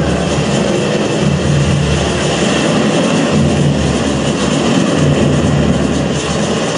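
Loud, dense rumbling noise from the dance's backing track over a hall sound system, with an uneven pulsing low end and no clear melody or singing.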